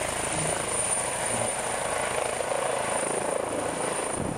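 Eurocopter EC135 air-ambulance helicopter lifting off and climbing away: steady rotor and turbine noise with a thin, high, steady whine over it.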